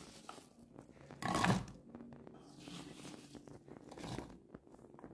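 Handfuls of diced apple scooped off a wooden cutting board and dropped into a small coated saucepan. The loudest drop comes about a second in, followed by two fainter ones.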